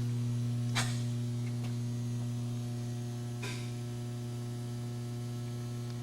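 Steady electrical hum with a low buzzing tone, broken by two short faint clicks, about a second in and again past the halfway point.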